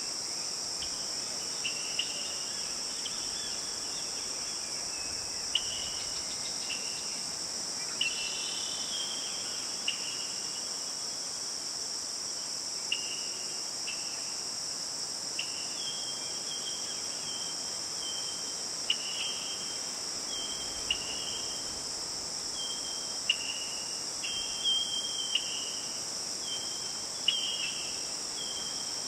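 Night-time insect chorus: a steady, high-pitched cricket trill that never stops, with many short, separate chirps a little lower in pitch scattered through, coming more often in the second half.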